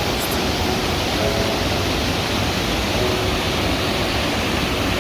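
Steady rushing water noise, with a few faint soft musical tones underneath.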